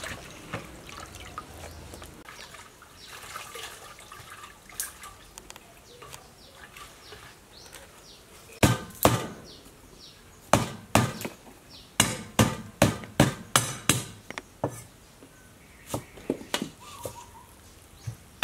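A run of sharp, irregular knocks and clacks of hard objects striking, starting about halfway through and coming a few times a second. The first half holds only faint background noise.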